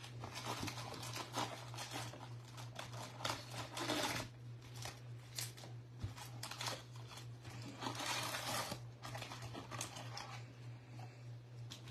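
Wrapped 2024 Bowman Baseball trading-card packs crinkling and rustling in irregular bursts as they are pulled out of the hobby box and handled, over a steady low hum.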